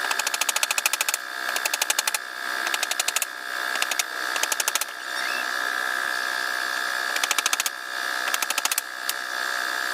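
Rapid mechanical clicking in short bursts, about fourteen clicks a second, over a steady high hum. Four bursts come close together, then a pause of about two seconds, then two more near the end.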